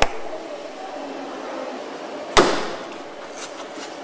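Assembly-line work on a car: a sharp click right at the start, then about two seconds in a louder metallic knock that rings briefly, over a steady factory hum.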